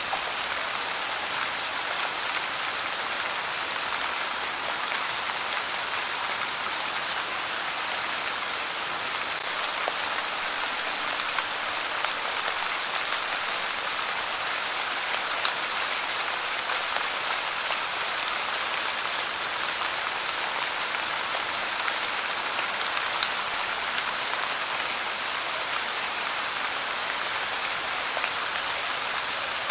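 Light rain falling steadily, a dense even patter of many small drops with no pauses or changes.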